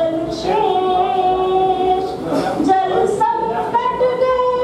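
A woman singing Hindi metrical verse (chhand) into a microphone, holding long, drawn-out notes.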